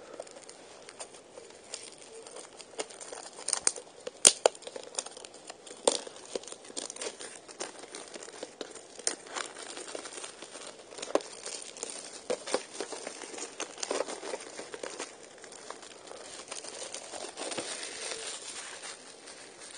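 Plastic shrink-wrap being torn and peeled off a factory-sealed VHS tape, crinkling with irregular sharp crackles and snaps.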